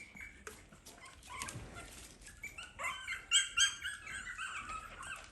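Pomeranian puppies whining and yipping in many short, high-pitched cries. The cries grow louder and busier from about halfway through. They are excited that their mother has come back to nurse them.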